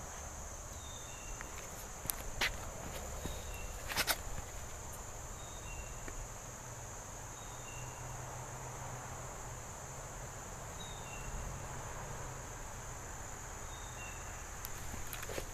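Steady high insect buzz, with faint short chirps and a low steady rumble underneath. A few sharp clicks come about two and a half and four seconds in.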